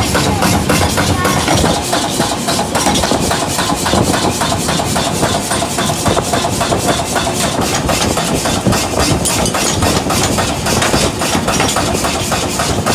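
Workshop machinery running steadily, with a fast even knocking of several beats a second.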